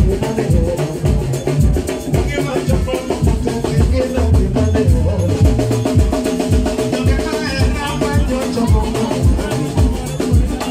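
Loud dance music with a steady, heavy bass beat.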